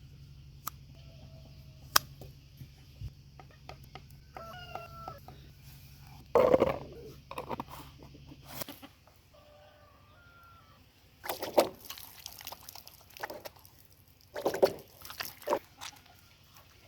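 Chicken clucking in short calls, with several loud knocks and rustles, the loudest about six seconds in, about eleven and a half seconds in and near the end.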